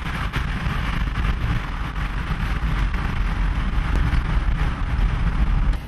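Strong wind and rain, with low, gusty buffeting of the wind on the microphone.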